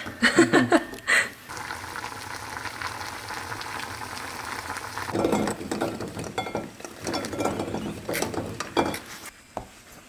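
Wild chestnuts clacking against each other in a wet steel bowl as a hand sifts them. A steady sizzling hiss of cooking follows. Near the middle, cooked chestnuts clatter out of the pot onto a ceramic plate.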